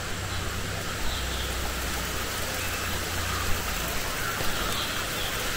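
Steady rushing hiss of flowing stream water, with a few faint bird chirps over it.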